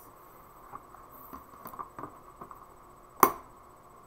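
Light rustling and small clicks from handling papers in a clear plastic storage box, then one sharp plastic snap about three seconds in as the box's lid is shut.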